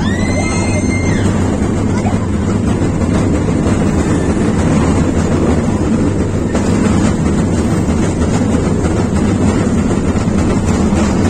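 Small amusement-park ride-on train running on paved ground, a steady low rumble heard from aboard a carriage. A brief high tone, about a second long, sounds at the start.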